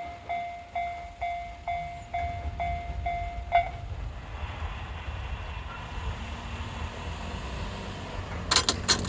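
Japanese level-crossing alarm ringing one repeated ding about three times a second, stopping about three and a half seconds in. Under it runs the low rumble of an E531 series electric train, with a quick run of sharp clacks near the end.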